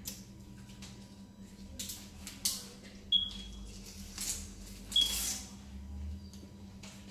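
Rustling of gloves and packaging being handled, with two sharp clicks about two seconds apart, each leaving a brief high ring. A steady low hum runs underneath.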